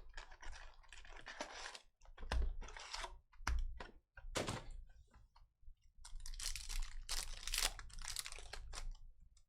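Crinkling and tearing of plastic wrapping as a trading-card box and its packs are ripped open, in irregular crackly bursts that grow busier about six seconds in.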